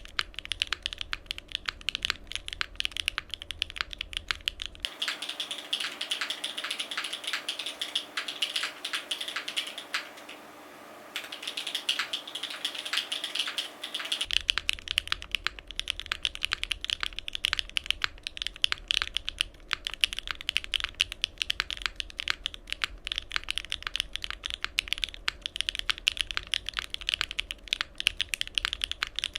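Fast, continuous typing on a Cycle7 mechanical keyboard: stock Bsun Tai Chi switches under GMK Mecha-01 keycaps, on a gasket-mounted aluminium plate with no foam, giving a rapid run of keystroke clacks. The typing pauses for about a second near the middle.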